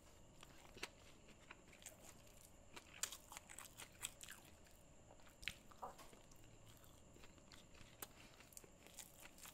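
Faint close-up chewing of a mouthful of batapola-el red rice and curry eaten by hand, with irregular small crunches and mouth clicks.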